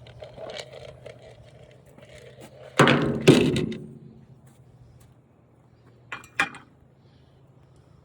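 Loud clatter of flat-screen TV parts being handled and set down, followed about three seconds later by two short, sharp knocks, over a faint steady low hum.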